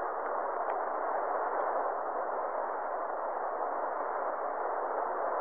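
Steady background hiss of an old 1986 audio recording, with no voice and a few faint ticks.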